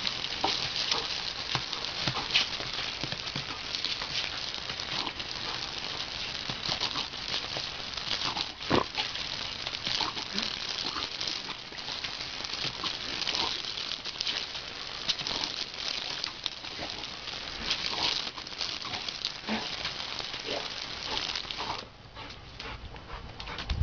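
Garden hose jet hissing and spattering on paving stones while a yellow Labrador snaps and laps at the water, with many wet clicks and splashes. The spray noise drops away sharply near the end.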